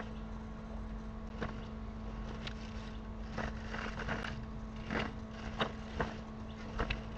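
Steady electrical hum from a homemade sewer camera rig, crossed by irregular knocks and scrapes as the camera is pushed along the sewer pipe. The knocks are few at first and come more often in the second half.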